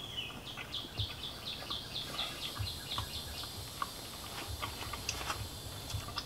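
A bird singing in the background: a quick trill of short falling chirps, about four or five a second, starting about half a second in and lasting about two seconds, followed by a few scattered single chirps.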